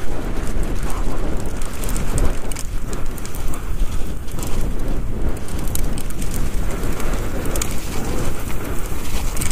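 Mountain bike descending fast on a slippery, muddy moorland trail, heard from a headcam: wind buffeting the microphone over the steady rush of tyres on wet ground, with frequent small clicks and knocks from the bike.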